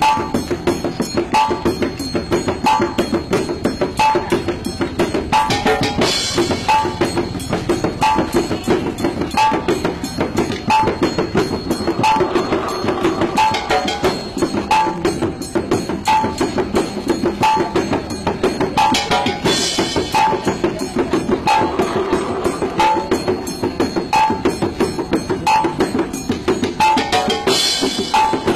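Percussion music: dense drumming under a steady, evenly repeating bell-like stroke, with three louder crashes.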